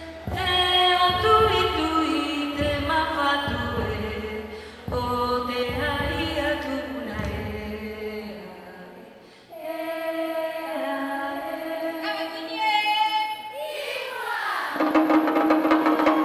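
Polynesian song for dance: sung and chanted voices holding long notes, with a low drum beat under the first half that drops out about halfway. Near the end a run of quick percussion strikes comes in.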